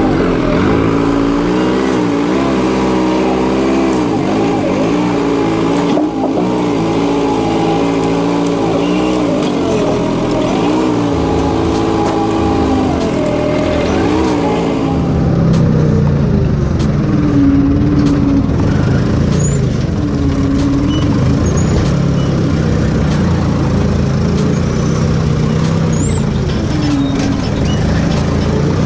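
Forklift engine running as the truck is driven and worked: its speed rises and falls repeatedly, then settles lower and steadier about halfway through. A few faint clicks sound over it in the second half.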